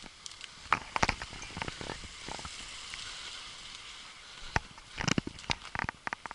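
Running footsteps on a dirt and leaf-covered forest trail: irregular thuds and crunches in two clusters, over a steady hiss.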